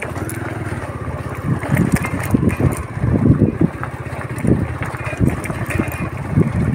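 A small vehicle's engine running steadily at low speed over a rough gravel road, with irregular jolts and rattles from the bumps and wind buffeting the microphone.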